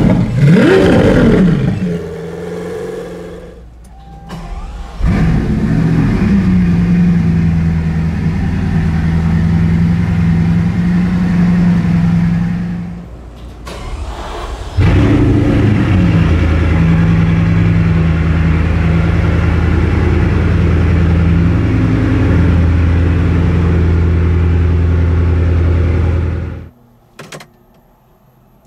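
Supercar engines: a Lamborghini Aventador V12 revs up and down for the first couple of seconds. Then two engine start-ups follow, each flaring and settling into a steady idle; the second, about halfway through, is a Bugatti Chiron's quad-turbo W16. The idle cuts off abruptly a couple of seconds before the end, leaving a few faint clicks.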